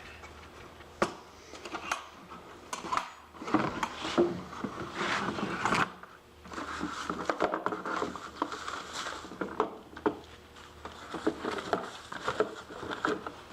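Irregular clatter, knocks and rustling of objects being handled and moved about in a small room.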